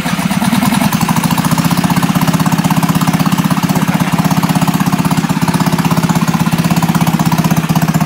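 Small engine of an electric-start minibike running steadily with a rapid, even beat, freshly started by its remote-start switch.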